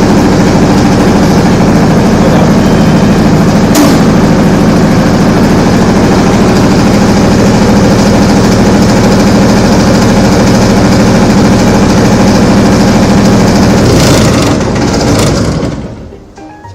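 Diesel generator set running steadily and loudly. Near the end come a couple of sharp clicks, and the engine runs down and stops, as in an emergency shutdown.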